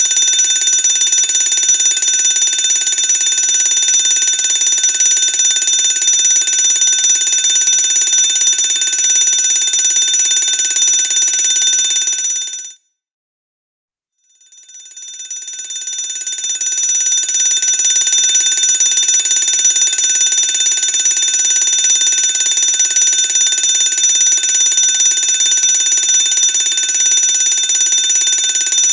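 Fire alarm bell ringing continuously at a high, steady pitch. It cuts off suddenly about 13 seconds in. After a second or so of silence it starts again, building up over a couple of seconds and ringing on.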